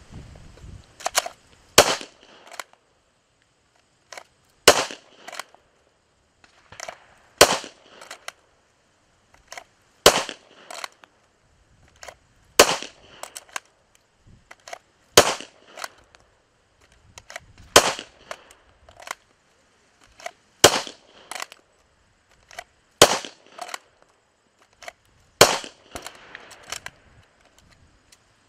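Sharp metallic clicks and snaps from a pistol being worked in its holster, in a regular cycle of about one loud snap every two and a half seconds, each with a few lighter clicks around it.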